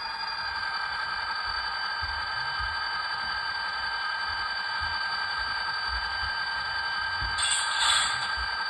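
ESU LokSound 5 Micro decoder's diesel engine sound through an N scale locomotive's tiny speaker, idling steadily with the locomotive stopped. A short hiss comes about seven and a half seconds in.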